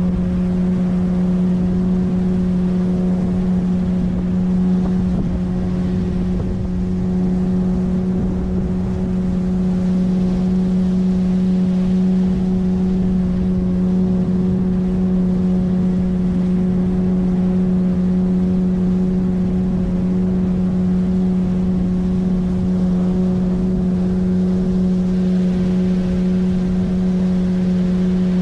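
9.8 hp outboard motor on an inflatable PVC boat running steadily at cruising speed, a constant engine hum that holds one pitch throughout.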